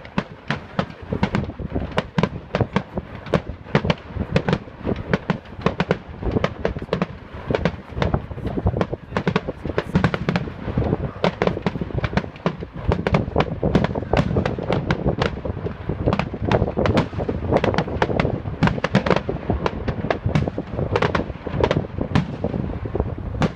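Fireworks display going off: a dense, continuous barrage of bangs and crackling over a low rumble, many reports a second without a break.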